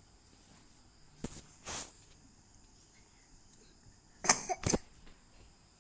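A person coughing twice in quick succession about four seconds in, after a couple of fainter short breathy sounds.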